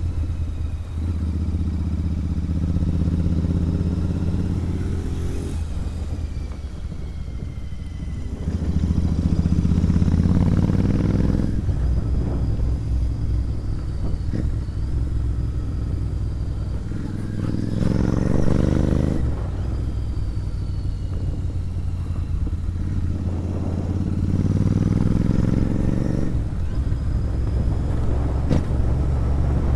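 Royal Enfield Interceptor 650's parallel-twin engine through an aftermarket sport exhaust, ridden on the road. Four times its note climbs in pitch as it accelerates, then falls away.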